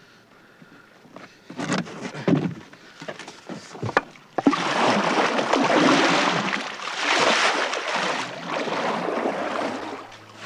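Water churning and splashing hard beside a small boat as rotenone powder is mixed into it. The rush starts suddenly about four and a half seconds in and runs on loudly, after a few quieter knocks and handling sounds.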